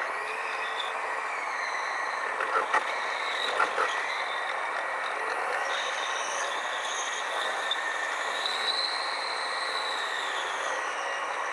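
Rapid KL light-rail train running on its track, the sound sped up along with an eightfold timelapse: a high rushing noise with a motor whine gliding up and down in pitch, and a few sharp clicks about two and a half to four seconds in.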